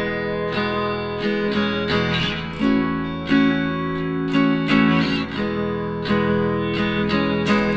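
Background music on guitar: plucked notes at a steady pace.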